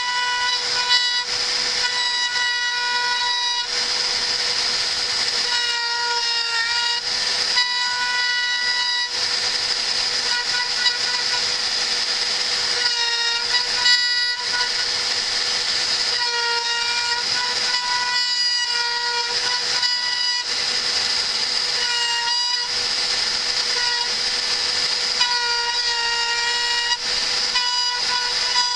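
CNC router engraving a logo into a laminate flooring plank: a steady high hiss of cutting, with a pitched machine whine that starts and stops every second or two as the machine moves.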